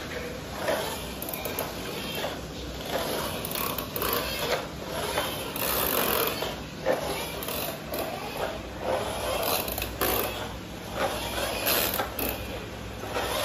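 Plastic toy car pushed back and forth across a tiled floor, its wheels and gear mechanism rattling in uneven spells.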